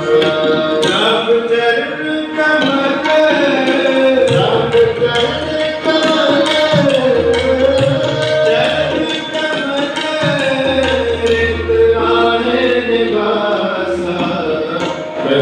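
Sikh kirtan: a harmonium and tabla play with a voice singing the melody. Low, ringing bass-drum strokes from the tabla come in stretches.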